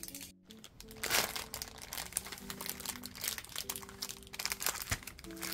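Clear plastic bags of suncatcher decals crinkling as they are handled, in irregular crackles, over soft background music.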